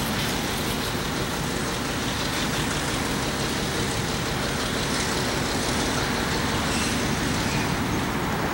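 EMD diesel locomotive's engine running steadily as the locomotive creeps toward the camera at walking pace over rough track.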